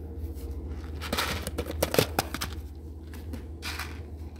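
Faint handling sounds of yarn and a crocheted piece: soft rustles and a few light clicks, mostly between about one and two and a half seconds in and once more near the end, over a steady low hum.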